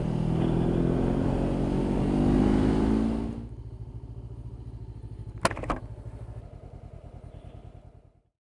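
A Honda CB500X motorcycle's parallel-twin engine running under wind noise, then the wind drops away as the bike comes to a stop. It idles with a steady pulse, there are two sharp clicks, and the engine is switched off near the end.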